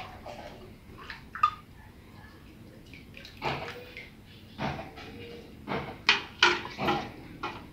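A metal ladle clinking and scraping against a clay pot, and pieces of beef tripe dropping with wet splashes into a pot of water. About half a dozen separate knocks and splashes, bunched together near the end.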